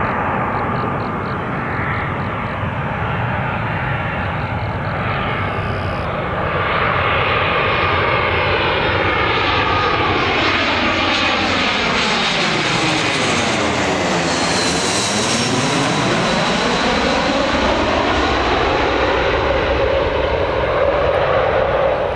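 Airbus A320-200 jet airliner on landing approach, gear down, passing low directly overhead. Its engine noise builds to a loud, steady rush, with a whooshing sweep that falls and then rises in pitch as it goes over, a little past halfway through.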